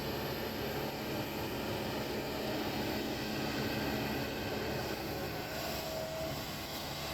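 Kobelco excavator's diesel engine running steadily.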